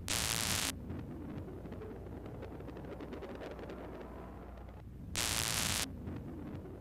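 Low steady hum, broken twice by a loud burst of static hiss lasting well under a second: once at the start and again about five seconds in.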